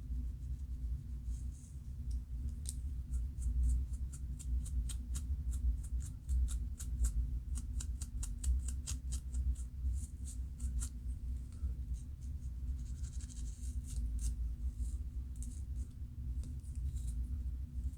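Scalp being scratched to loosen dandruff: a run of short, dry scratching strokes, quickest and densest in the middle, over a steady low hum.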